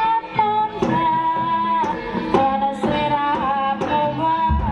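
Live Javanese jaranan-style music for a rampak celeng dance: a high, held melody line over hand-drum strokes, with a low, heavy drum or gong stroke near the end.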